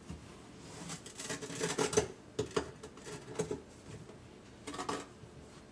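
A scoop digging into sugar and tipping it into a plastic pitcher: a run of gritty scrapes and light taps, busiest in the first two seconds, with a few more taps after and one near the end.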